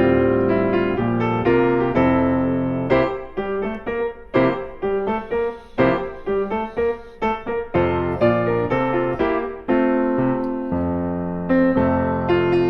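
Background piano music: a gentle melody over chords, with quicker separate notes in the middle.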